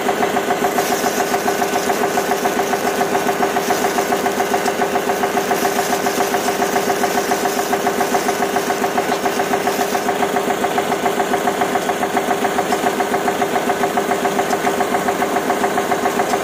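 Miniature model diesel engine running steadily, belt-driving a small model thresher: an even, fast chugging of about five or six beats a second over a steady hum.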